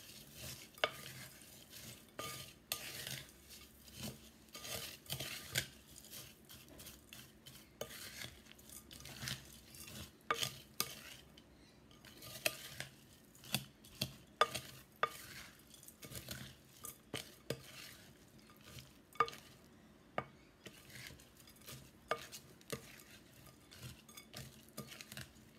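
Wooden spatula stirring and tossing a dry mix of instant noodles, chickpeas and chopped vegetables in a glass bowl. It makes irregular scraping and rustling, with sharp clicks where the spatula strikes the glass.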